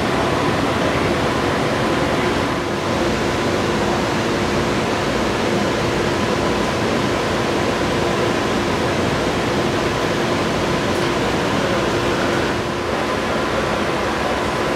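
Steady rushing air noise of a passenger rail car's ventilation and air-conditioning system, with a faint steady hum under it.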